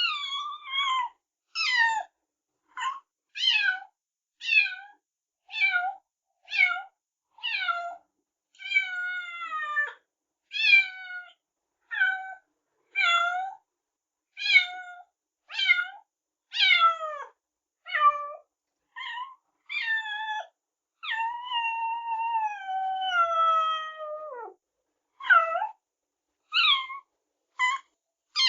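A kitten meowing over and over: short, high-pitched meows, most under a second long and falling in pitch, about one a second with brief gaps, and one longer drawn-out meow a little past the middle that sinks in pitch at its end.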